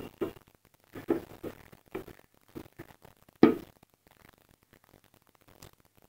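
A cut plastic bottle handled and turned in the hands: scattered knocks and rustles of the plastic, with one sharper knock about three and a half seconds in.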